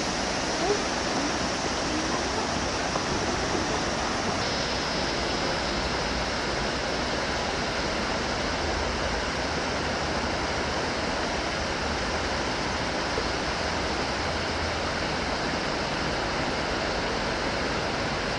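Mountain river rushing over stones in shallow rapids: a steady, even roar of white water.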